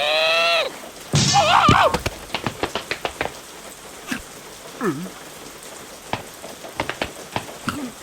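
Cartoon soundtrack: short, wavering squealing character voices about a second in, then scattered light dripping taps like raindrops pattering, with a brief falling squeak around the middle.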